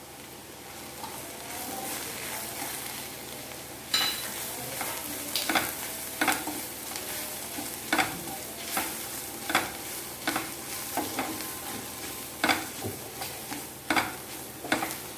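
Onions and spice powders frying in coconut oil, sizzling steadily while being stirred. From about four seconds in, the stirring utensil knocks and scrapes against the pan roughly once a second.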